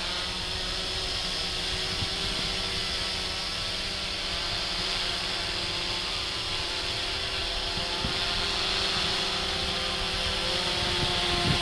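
Blade 350 QX quadcopter hovering close by: its four brushless motors spinning carbon fiber propellers give a steady, many-toned whine and buzz. The owner finds it pretty quiet.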